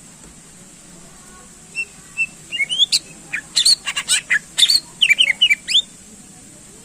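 Greater green leafbird (cucak ijo) singing: starting about two seconds in, a rapid four-second run of sharp whistled notes and chips, many sliding quickly up or down in pitch.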